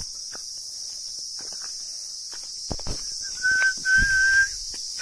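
Footsteps on a stony dirt track under a steady high insect chorus. About three seconds in, a long whistled note is held at one pitch with a brief break, the loudest sound here.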